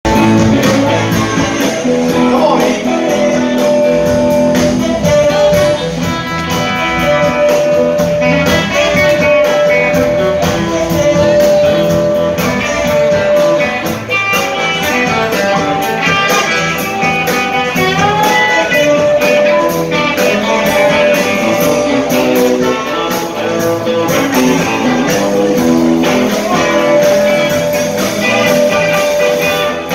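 Live band playing a bluesy swamp-pop number, with electric guitars, accordion, saxophone and drums all going.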